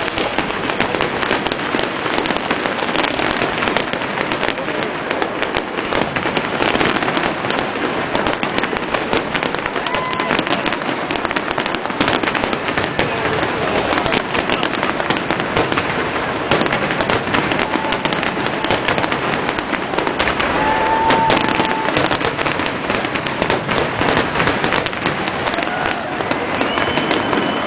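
Aerial fireworks shells bursting in a dense, unbroken barrage of bangs and crackling.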